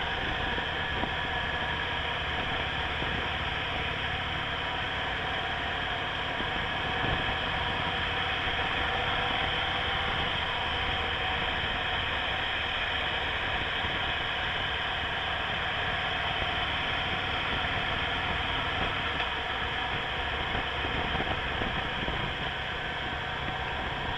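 Steady road noise from a motorcycle under way: the rush of wind over the microphone with the engine's steady running underneath.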